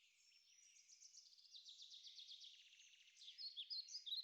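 Faint birdsong: small birds chirping and trilling, with a fast trill in the middle and louder chirps near the end.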